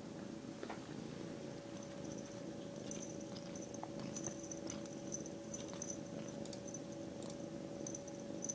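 Young kitten purring steadily, close up, with a few soft clicks.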